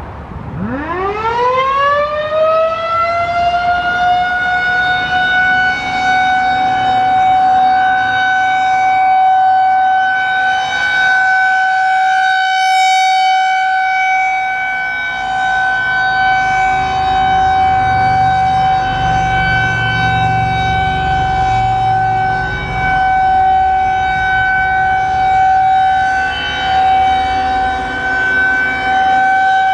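Federal Signal 2001-130 electromechanical siren winding up from a low growl to a steady high tone over the first few seconds, then holding that one tone: the steady alert signal of a siren test.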